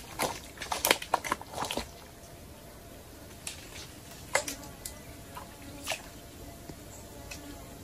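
Small wet clicks and splashes at the water's surface: a quick cluster in the first two seconds, then a few single ones spread out, over a faint steady background.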